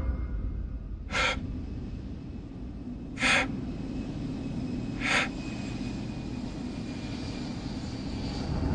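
Three short gasping breaths about two seconds apart, over a steady low rumble.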